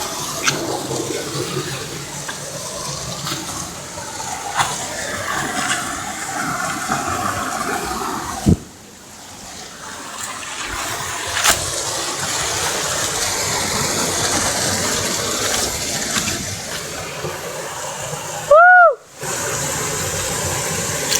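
Steady rushing water from a waterfall or stream, which drops out suddenly about eight and a half seconds in and builds back over the next few seconds. Near the end, a short loud tone swells and falls in pitch inside a brief gap of silence.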